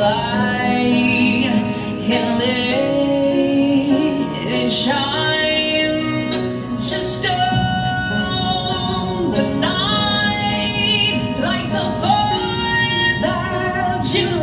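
Song with a woman singing a melody over instrumental accompaniment, the dance routine's music track.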